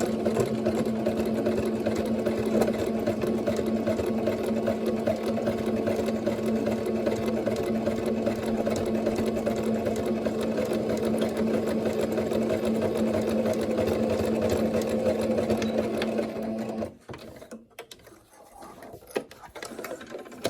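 Singer Starlet 6680 sewing machine running steadily with an even hum, sewing a straight stitch, then stopping about seventeen seconds in. A few faint clicks follow.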